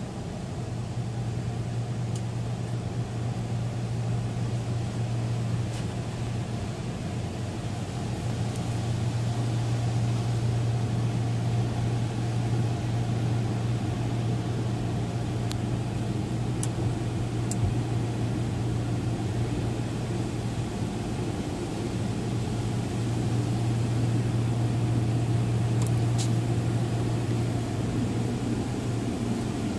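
A touchless conveyor car wash spraying presoak and soap over the car, heard muffled from inside the cabin. A steady low hum sits under a noisy wash of spray that swells and eases as the car moves along, with a few faint ticks.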